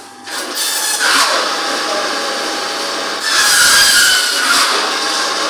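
Electric meat band saw running and cutting through beef shank and its bone. The noise rises about half a second in and grows louder, with a falling whine, for about a second from about three seconds in as the blade works through the cut.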